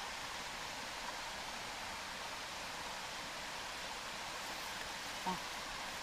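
Pancake batter sizzling in a titanium non-stick frying pan over a wood-burning camp stove, a steady even hiss. A brief louder sound about five seconds in.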